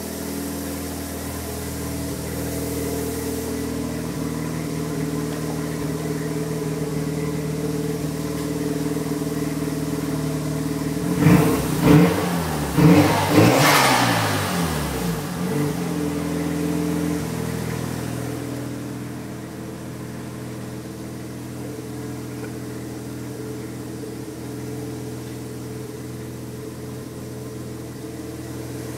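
Mazda RX-7 FD3S's twin-turbo 13B twin-rotor rotary engine, breathing through HKS intake filters and a Greddy exhaust, idling steadily. About eleven seconds in it is blipped about four times in quick succession, pitch rising and falling, with compressor-surge flutter through the intake filters as the throttle closes, then it settles back to idle.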